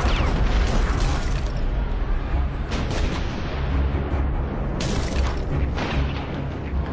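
Battle sound effects: a continuous deep rumble of artillery with sharp blasts and cracks of shellfire and gunfire, clustered about a second in, around three seconds in and around five seconds in.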